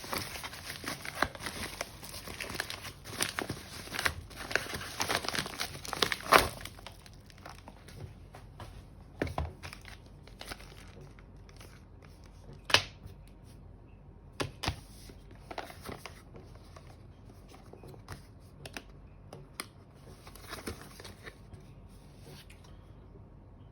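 Packaging crinkling and tearing as a product is unboxed by hand. It is dense for the first six or seven seconds, then thins to scattered rustles and clicks, with one sharp click about halfway through, and grows quieter near the end.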